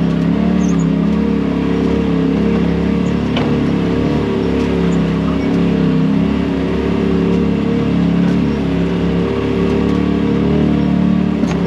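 Side-by-side UTV engine running steadily while driving, its pitch wavering slightly with the throttle. Two brief knocks sound about a third of the way in and near the end.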